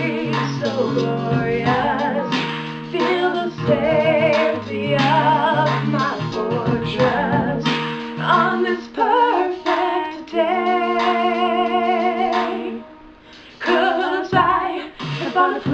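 A woman singing a slow song with wide vibrato, with a dubbed harmony vocal, over instrumental accompaniment whose low bass notes stop about eight seconds in. Long held notes follow, with a short pause before the singing picks up again near the end.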